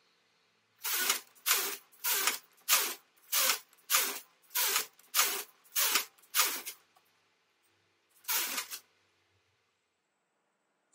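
Carriage of a Silver Reed SK830 knitting machine sliding back and forth across the needle bed: about eleven passes, roughly two a second, then one more after a short pause.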